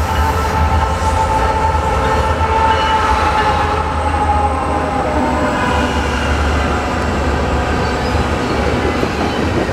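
Freight train with diesel locomotives, including a CN unit, passing at speed: the locomotives' engines rumble by, then the cars roll past. A chord of steady high tones, most likely the train's horn, dips slightly in pitch about halfway through as the locomotives go by.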